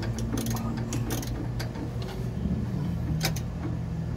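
Hand ratchet clicking in short, irregular runs as a bolt on a Ford F-150's upper control arm is worked loose, over a steady low hum.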